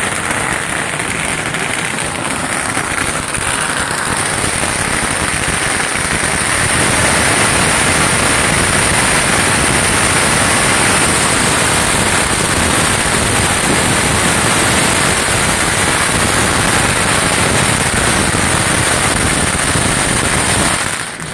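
A long string of firecrackers hung from a pole going off in a dense, unbroken crackle of rapid bangs, louder from about six seconds in and stopping abruptly at the end.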